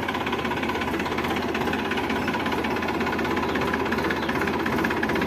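Massey Ferguson 7250 tractor's diesel engine running steadily at idle, with a fast, even firing beat.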